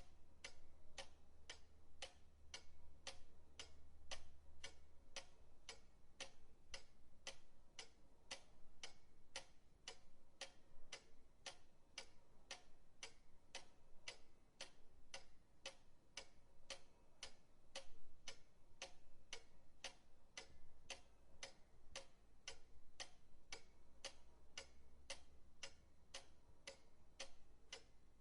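Old pendulum clock ticking steadily, about two crisp ticks a second, with a faint low hum beneath.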